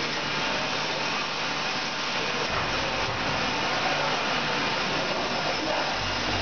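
Automatic bag-filling machine for dog food running, a steady hissing machine noise, with two brief low rumbles, about two and a half seconds in and again near the end.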